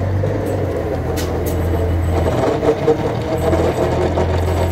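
1935 truck running loaded in eighth gear, a steady low drone under the engine note: the 'ronqueira' growl from the differential, which the owner suspects is a fault. A couple of brief ticks about a second in.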